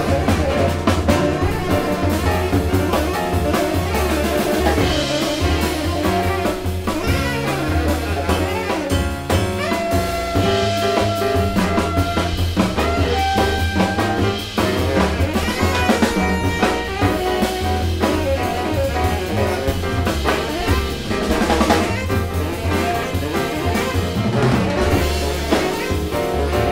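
Live jazz quartet: tenor saxophone playing melodic lines over piano, double bass and drum kit.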